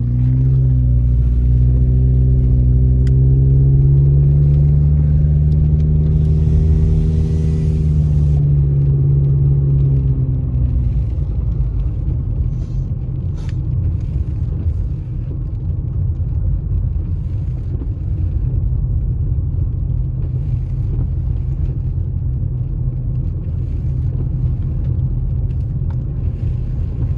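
A car driving, heard from inside the cabin: the engine note climbs over the first few seconds, holds, then drops away about ten seconds in, leaving a steady low rumble of road noise. A brief hiss comes in about six seconds in and lasts about two seconds.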